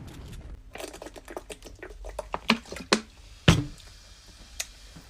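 A quick run of irregular clicks and taps, then a louder thump about three and a half seconds in.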